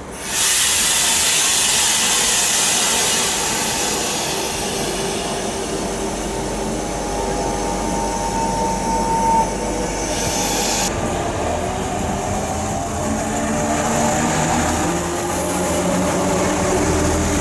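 A double-deck RER electric multiple unit passing close by at speed. The loud rush of its wheels and running gear starts sharply about half a second in, with a steady high whine for a few seconds around the middle, then eases to a lower rumble and hum.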